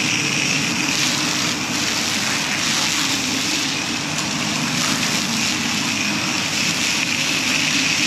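Self-serve car wash pressure wand spraying a steady high-pressure jet of water against a soap-covered truck body: a continuous hiss and splatter over the steady drone of the wash's pump.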